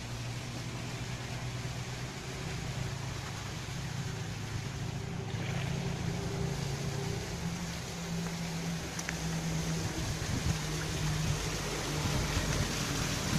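Small fountain jets splashing into a stone basin, an even watery hiss, with a steady low hum underneath.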